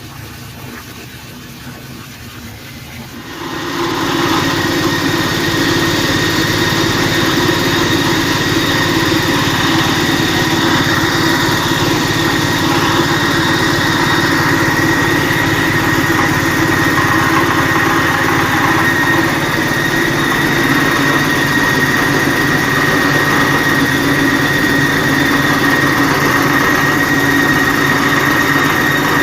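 8-inch spice grinding machine running steadily with a whine, grinding garlic; its sound steps up sharply about three and a half seconds in and stays loud and even.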